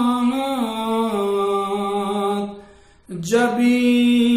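A man singing a manqabat (Urdu devotional poem) solo and unaccompanied, holding long drawn-out notes. He breaks off briefly for a breath near the middle, then comes back in on a new held note.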